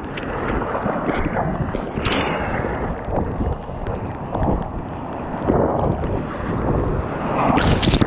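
Breaking-wave whitewash churning and sloshing around a camera held at the water's surface, with wind buffeting the microphone in uneven surges. Near the end a loud splash of spray hits the camera.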